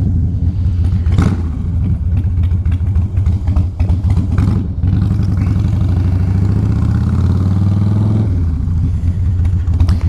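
Harley-Davidson Softail Fat Boy's V-twin engine running under way. Its pitch climbs steadily for a few seconds, then drops sharply about eight seconds in, as at a gear change or throttle roll-off. There are a couple of short clicks in the first half.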